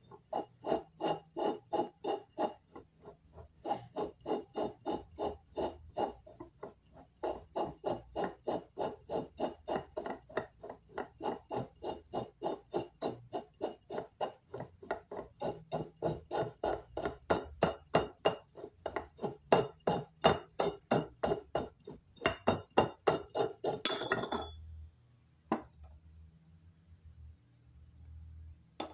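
Glass beer bottle being turned by hand on a homemade hot-wire bottle cutter, clicking and rubbing against the cutter's guides in a fast, even rhythm of about four knocks a second. About 24 seconds in there is a louder, sharp crack as the bottle splits along the heated score line, and the clicking stops.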